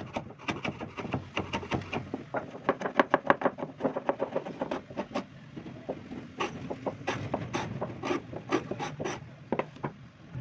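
Hand strokes rubbing or scraping across a wood surface, repeated at about two to three a second, loudest about three seconds in and more spaced out later.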